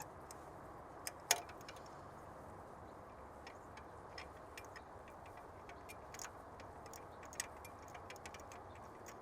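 Faint, irregular light metal clicks of a socket wrench and 5/8 spark plug socket turning a spark plug loose, with one sharper click about a second in.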